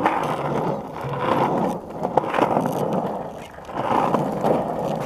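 Skateboard wheels rolling over a rough asphalt path: a gritty rumble that swells and fades every second or two, with a few sharp clicks around the middle.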